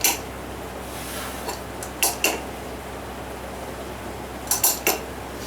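Metal tools and engine parts clinking against each other in a few sharp strikes: one at the start, two about two seconds in, and a quick cluster of three near the end.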